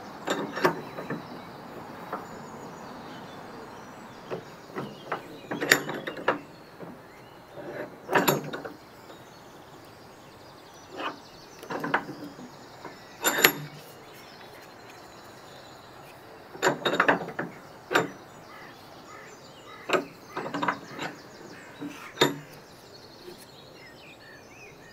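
Bench vise with plywood jaw pads being worked on a small loudspeaker driver, squeezing its loose riveted frame back together. It makes a series of irregular sharp clicks and knocks, some in quick clusters, with quiet room noise in between.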